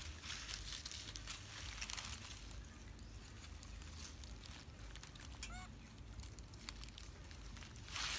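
Faint rustling of dry leaf litter as young macaques move about, with one short squeaky call from a young macaque about five and a half seconds in.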